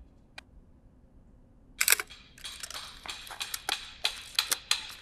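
Mamiya 645 Pro medium-format SLR shutter firing about two seconds in: a sharp double click. A rapid run of mechanical clicks and rattles follows.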